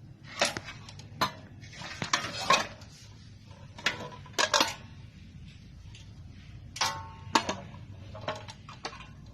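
Irregular metallic clinks and clatters of small hard parts or tools being handled, a few knocks every second or two, some with a brief ring.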